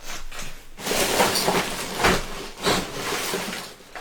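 Plastic wrappers and cardboard packaging crinkling and rustling as opened-box trash is handled and pushed down, with a few sharp knocks, the loudest about two seconds in.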